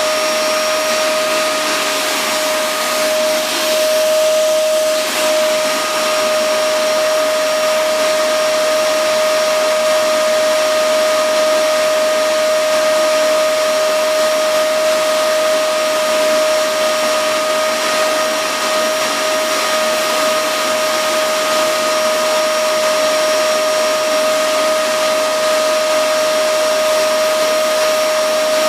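Vacuum cleaner running steadily, its motor giving a constant high whine over a rushing hiss of air.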